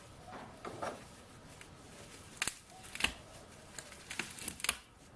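Scattered light clicks and knocks of small boxes and parts being handled and rummaged through, with the sharpest knocks about two and a half and three seconds in and a quick run of clicks near the end.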